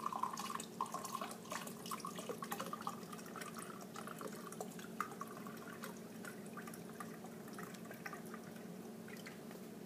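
Vodka poured from a bottle into a measuring container, a trickle with many small drips and plinks that thin out over the second half.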